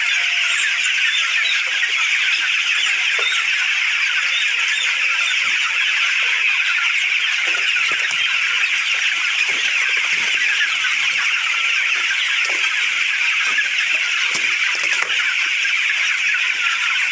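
A large flock of broiler chickens in a poultry shed, many birds peeping and cheeping at once in a steady, dense chorus of short high calls.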